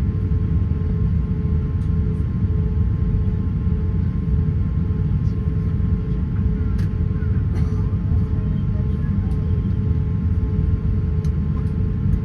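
Airbus A350-900 cabin noise: a steady low rumble from the aircraft, with a constant hum over it.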